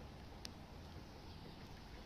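Faint outdoor ambience: a low, steady rumble with a single short click about half a second in.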